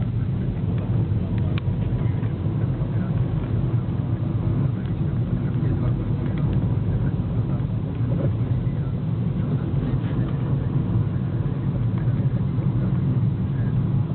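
Car driving along a road, heard from inside the cabin: a steady low drone of engine and tyre noise.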